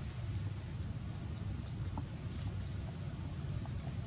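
Steady shrill chorus of insects in the background over a low rumble, with a few faint ticks.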